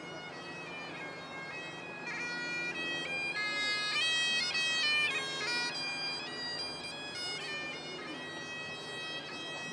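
Highland bagpipe playing a marching tune over its steady drones, growing louder about two seconds in.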